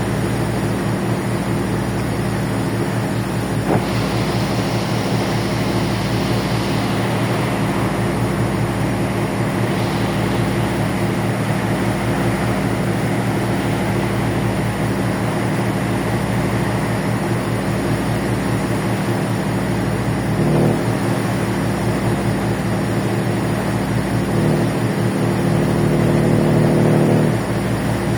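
Steady low drone of a ferry's engines, heard on board. A hiss rises over it for about five seconds, starting about four seconds in, and the hum swells louder for a few seconds near the end.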